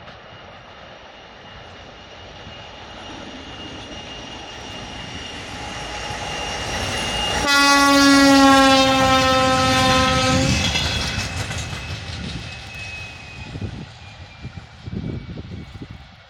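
TEM2 diesel shunting locomotive with a timber train, its engine and wheels growing louder as it approaches. About halfway through it gives one loud horn blast of about three seconds, the pitch sagging slightly. The rumble then fades away with a few wheel knocks.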